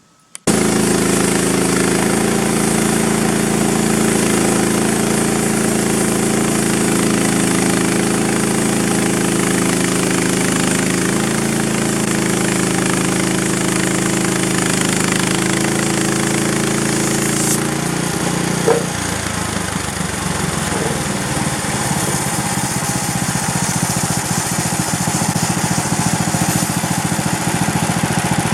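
Small gasoline engine of a Frontier OS27 bandsaw mill running steadily. About two-thirds of the way through there is a short knock, and the engine's sound drops lower and rougher from then on.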